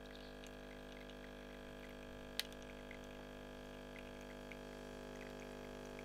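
Home espresso machine's pump humming steadily while a shot of espresso runs into a glass, with small drips and one sharp click about two and a half seconds in.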